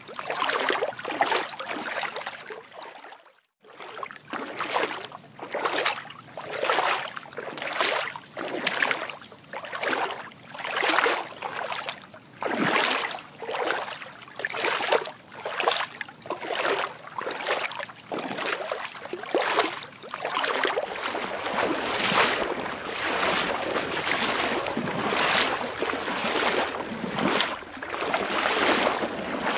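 Water swishing in rhythmic swells of splashy noise about once a second, cutting out briefly about three seconds in.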